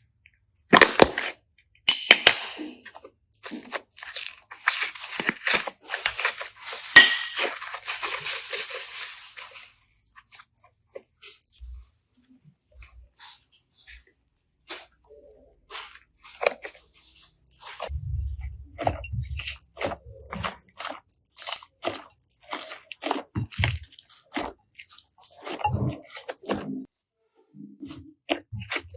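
Slime crunching and crackling as it is squeezed and pulled by hand, dense for the first ten seconds or so, then sparser crackles and soft squelches.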